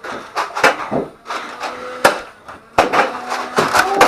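A run of sharp knocks and clicks, a few spaced ones at first and then coming quickly in the last second or so, with a faint steady hum beneath.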